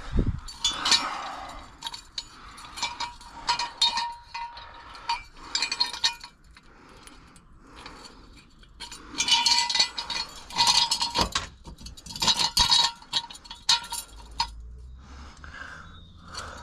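Steel floor jack and jack stands being handled and set under a car: irregular metal clinks and clanks, some with a short ringing note, in busy spells with quieter gaps between.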